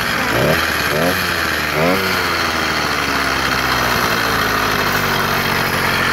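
Small single-cylinder two-stroke bolt-on engine on a motorized bicycle, running. Its pitch rises and falls a few times in the first two seconds as the throttle is worked, and then it idles steadily.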